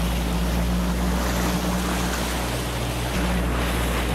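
Small motorboat's engine running steadily at cruising speed, a low drone under the rush and hiss of water spraying off the hull and wake. The drone shifts slightly about three seconds in.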